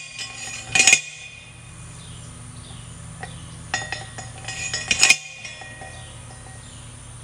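Metal clanking: sharp ringing metallic strikes, one about a second in and a cluster around four to five seconds in, over a steady low hum.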